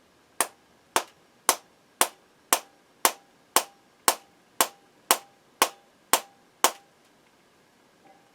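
Soft-faced mallet tapping the chuck of a flex-shaft power carver into its handpiece to seat it: thirteen sharp, evenly spaced taps, about two a second, each with a brief faint ring, then they stop.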